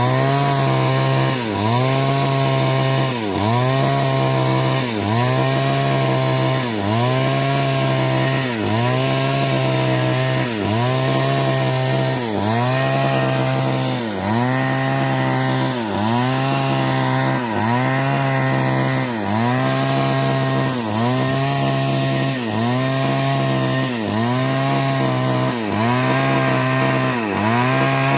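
Chainsaw engine running at high speed, its pitch dipping briefly and recovering about every one and a half seconds in a steady rhythm.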